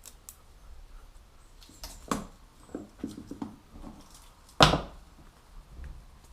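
Scattered knocks and clicks, with a cluster of smaller knocks in the middle and one sharp, loud knock about four and a half seconds in.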